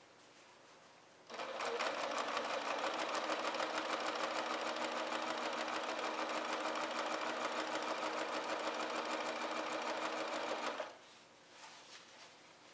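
Domestic electric sewing machine stitching a seam at a steady speed, with a rapid, even rhythm of needle strokes. It starts about a second in, runs for about ten seconds and stops abruptly, followed by a few faint handling sounds.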